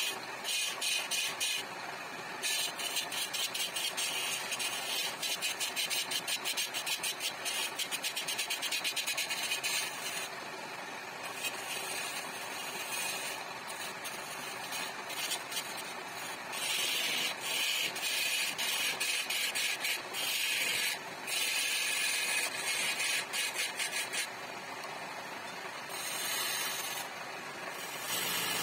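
Wood lathe spinning a wooden sofa leg while a hand-held chisel cuts into it: a scraping hiss that swells and drops back as the tool is pressed to the wood and eased off. Through the first ten seconds the cut has a rapid, fluttering chatter.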